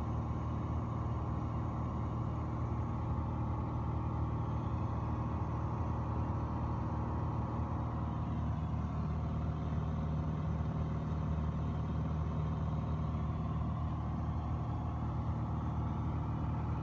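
Steady drone of a Piper Dakota's six-cylinder Lycoming O-540 engine and propeller in cruise, heard from inside the cabin.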